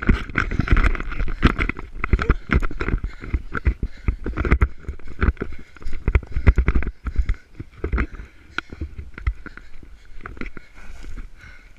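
Running footsteps on a dry dirt path through grass and brush, with rustling vegetation and gear jostling against the body-worn camera: dense, irregular thumps and crackles that thin out and get quieter in the last few seconds.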